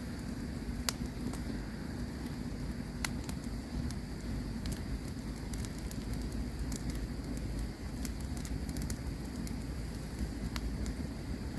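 Campfire crackling over a steady low rumble of flames, with scattered sharp pops, the loudest about one and three seconds in.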